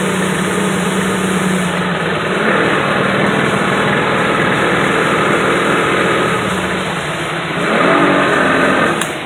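Motor boat's engine running steadily under way, with water rushing along the hull, swelling briefly near the end.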